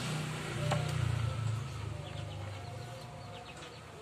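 A low vehicle engine rumble that swells and then fades over the first second and a half, with a single click about three-quarters of a second in. From about two seconds on come rapid, high, faint chirps.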